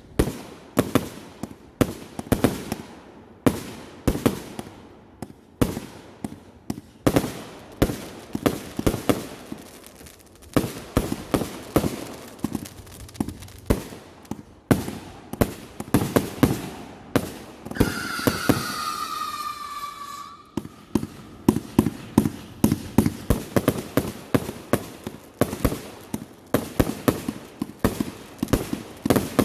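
Consumer fireworks going off in rapid succession: a steady string of sharp bangs, several a second. About two-thirds of the way through, a whistling firework gives a shrill whistle that falls slightly in pitch for about two seconds, then stops abruptly.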